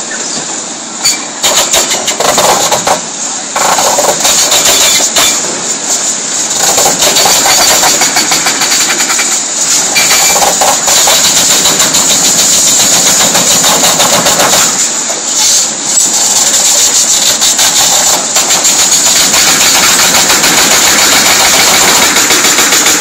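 Excavator-mounted hydraulic breaker hammering rapidly on the concrete of an overpass, over the running diesel engines of the demolition excavators. The hammering stops briefly a few times in the first five seconds, then runs on steadily.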